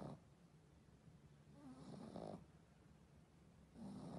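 Pug snoring faintly in its sleep, one snore about every two seconds: one about two seconds in and another starting near the end.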